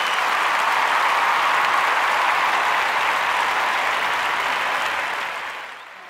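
Steady applause from an audience, fading out near the end.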